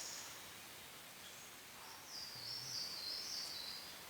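A songbird singing one short, high-pitched phrase of quick stepping notes about two seconds in, over faint outdoor background noise.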